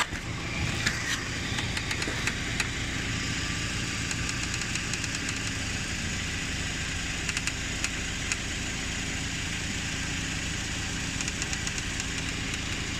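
Hyundai Accent engine idling steadily, with a few faint light clicks now and then.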